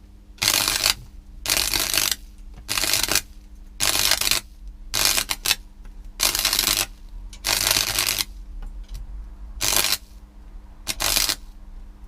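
Arc welder's arc crackling in short bursts, struck and broken about ten times, each lasting half a second to a second. A steady low electrical hum runs underneath.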